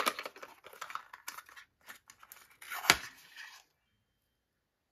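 A small cardboard advent-calendar box being pulled open by hand: cardboard and paper crinkling and scraping, with a sharp snap about three seconds in as the flap comes free.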